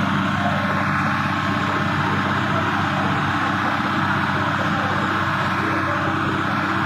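A heavy engine running steadily at an even pitch, under a constant rushing hiss.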